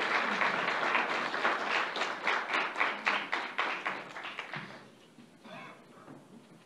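Audience applauding, the clapping thinning out and dying away about four and a half seconds in.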